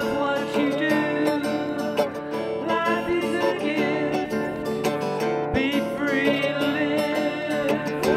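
Country-style music led by a plucked acoustic guitar.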